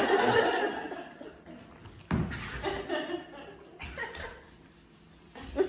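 Audience laughing in waves: a loud burst fading over the first second, another rising about two seconds in, and smaller flurries later.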